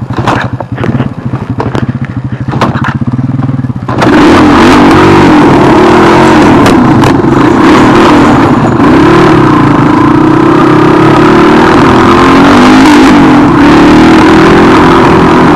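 Honda 250cc dirt bike engine running at low revs, then opened up about four seconds in and running hard under throttle, its pitch wavering as the rider rides.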